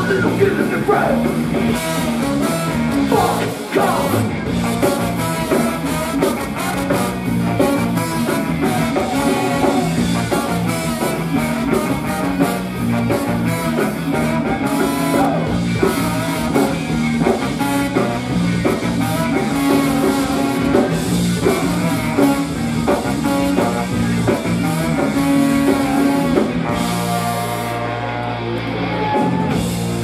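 Live ska-punk band playing loud: electric guitars, bass, drum kit and a horn section with baritone saxophone.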